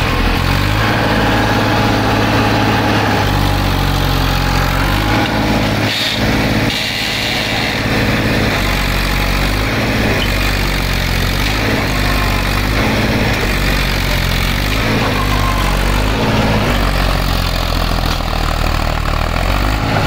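Diesel tractor engine running steadily at low revs.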